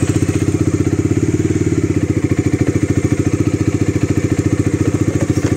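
Bajaj Dominar 400's single-cylinder engine idling steadily with an even, rapid pulse.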